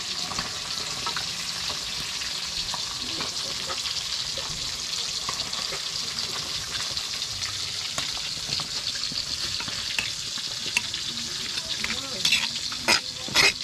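Hot cooking oil sizzling steadily in a pan as sambal fries, with a few loud sharp clatters near the end.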